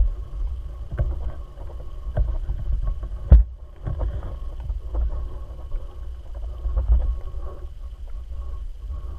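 Muffled low rumble of water moving around a homemade pole camera's housing held underwater, with irregular knocks, the loudest a sharp knock about three seconds in. A faint steady high tone sits under it.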